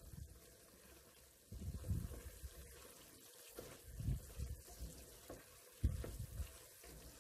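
Spatula stirring and turning braised chicken wings in a pan of simmering oyster-sauce liquid: soft sloshing and scraping in three brief spells.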